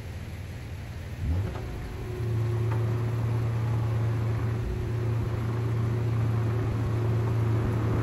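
A motor spins up about a second in with a brief rise in pitch, then runs at a steady low hum over a lower rumble.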